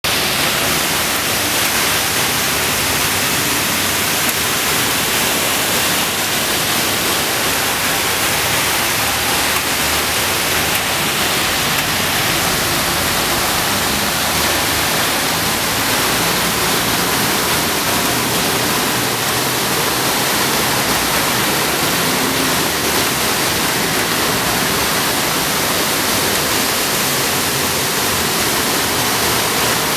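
Heavy rain pouring down onto trees and a flooded street, a loud, steady, unbroken hiss mixed with the rush of floodwater running across the road.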